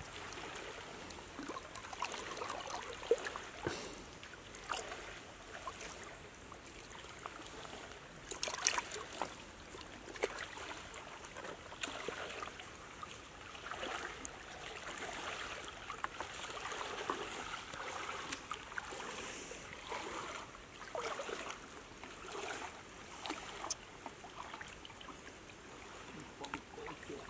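Water splashing and trickling in irregular bursts, with a louder splash about eight seconds in.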